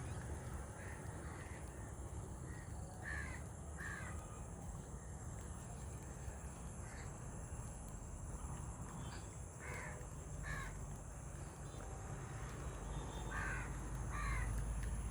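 Crows cawing, the calls mostly coming in pairs, three pairs spread through, over a steady low rumble.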